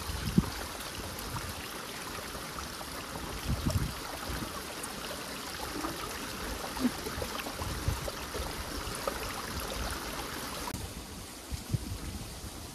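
Small rocky mountain stream running over stones, a steady rush of water, with a few dull low thumps. The water sound drops off suddenly near the end.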